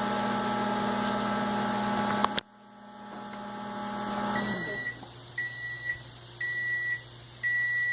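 LG microwave oven running with a steady hum, which cuts off with a click about two and a half seconds in as the 30-second heating cycle ends; a quieter hum carries on briefly, then four evenly spaced beeps signal that the cycle is finished. The oven's control board is working again on a substitute power-supply board.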